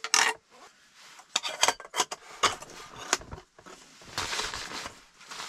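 A metal camping cook pot being packed: a run of clinks and knocks as the stove and small items are nested inside and the lid is pressed on, then a longer rubbing rustle.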